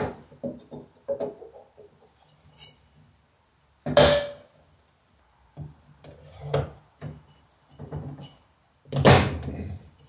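Scattered clicks, knocks and rustles of a plastic oil filter housing and a new paper filter element being handled on a metal workbench. Two louder, noisier bursts come about four and nine seconds in.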